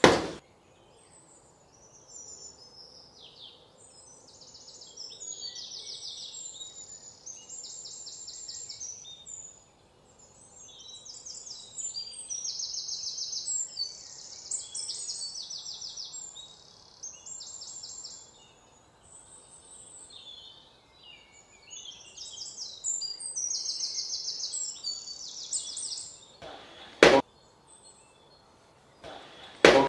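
Birds singing in many repeated trilled phrases. Three sharp knocks, one at the start and two near the end, as a large curved blade chops into a jackfruit.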